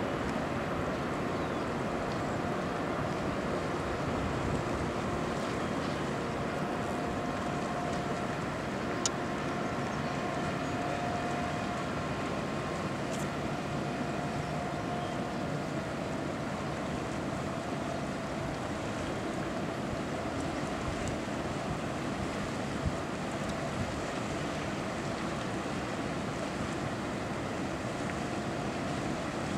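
Steady harbour background: an even low rumble and hiss with a faint engine drone, and wind on the microphone.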